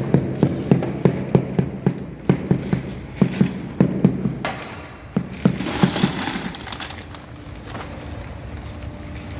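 Small hammer tapping on ceramic floor tiles and their levelling wedges, a quick run of sharp knocks about three a second that thins out to a few taps about five seconds in, then stops.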